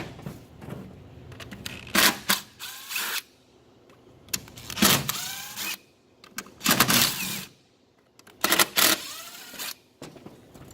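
Cordless driver spinning a T25 Torx bit to back the bolts out of a Volvo SCR DEF pump housing. It whirs in four short bursts, and its pitch rises as the motor spins up in several of them.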